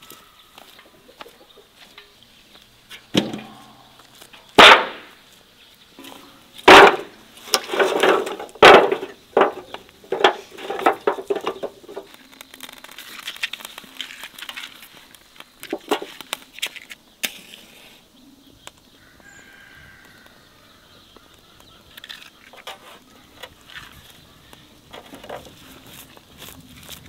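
Split firewood being dropped and stacked in a steel fire pan: a few loud, sharp clunks with a brief metallic ring, a run of lighter wooden clattering, then softer, scattered knocks of wood on wood near the end.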